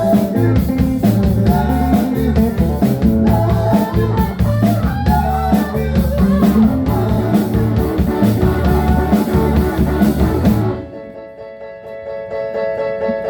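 Rock music with singing, drums and electric guitar; about eleven seconds in the band stops suddenly, leaving a guitar chord ringing on.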